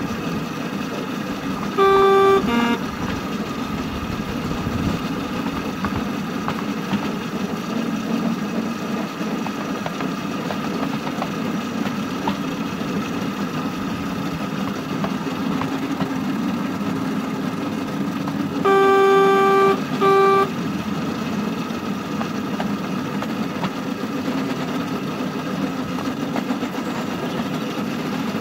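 Miniature railway shunter locomotive running slowly, heard from on board, its engine droning steadily. Its single-note horn sounds twice: a toot with a short second toot about two seconds in, and a longer toot followed by a short one later on.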